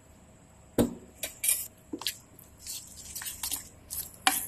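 Steel spoon stirring and scraping a thick yogurt-and-spice marinade in a bowl, with sharp clinks of the spoon against the bowl. A loud clink comes about a second in and another near the end.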